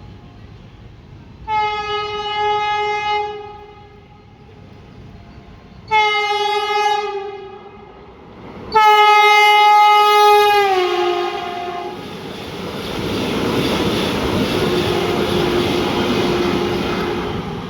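Indian Railways locomotive horn sounding three blasts, the last one dropping in pitch as the locomotive passes. Then comes the steady rushing rumble and clatter of the coaches going by.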